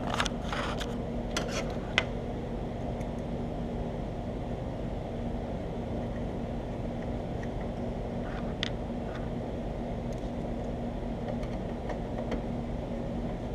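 A few light clicks and scrapes of a screwdriver turning hard drive mounting screws in a metal drive tray, mostly in the first two seconds, with one more click later. Under them runs a steady low hum.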